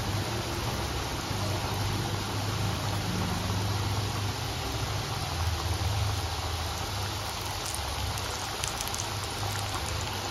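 Bhakarwadi pinwheels deep-frying in hot oil on medium heat: a steady sizzle and bubbling, with a few light crackles in the second half and a steady low hum underneath.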